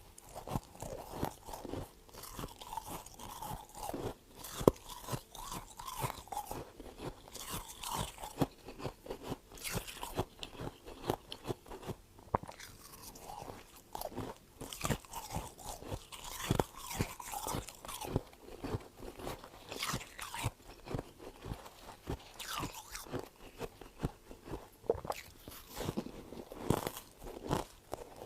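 Freezer frost being bitten and chewed, a dense run of irregular crunches.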